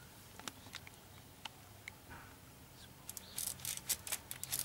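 A few faint ticks, then from about three seconds in a quick, irregular run of sharp light clicks: a ratchet wrench working a starter mounting bolt loose.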